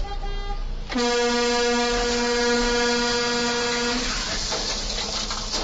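A vehicle horn sounded in one long warning blast of about three seconds, a single steady note, as a truck crashes through the intersection. When the horn stops, a steady noise without pitch carries on.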